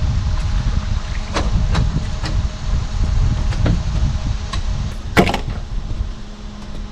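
Uneven low rumble of wind on the microphone under a faint steady hum, with several sharp clicks and knocks, the loudest a cluster about five seconds in. The rumble eases off near the end.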